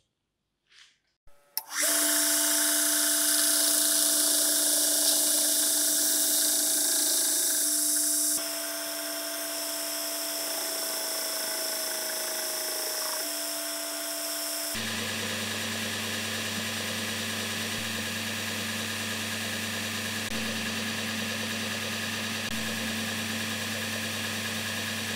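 A few light clicks as the blade is set in its clamping jig, then an electric belt grinder starts about two seconds in and runs steadily, its sanding belt grinding the steel knife blade. The steady tone shifts abruptly twice, about eight and fifteen seconds in.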